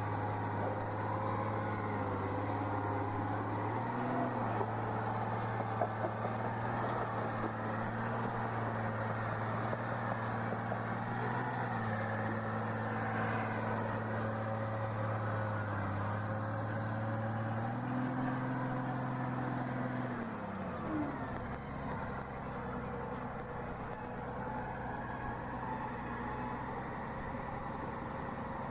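A heavy vehicle's engine running steadily, its pitch stepping up and down a few times as the revs change. It rises once more, then winds down about two-thirds of the way in, leaving a steadier, quieter background rumble.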